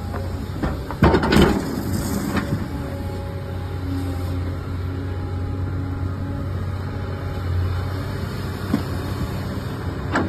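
Komatsu PC360-8 excavator's diesel engine running steadily, with a few metallic clunks from the machine, the loudest about a second in.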